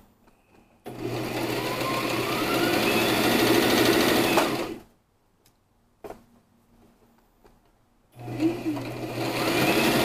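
Brother electric sewing machine stitching a cushion-cover seam: it runs steadily for about four seconds, stops, and after a pause broken by a single click starts running again near the end.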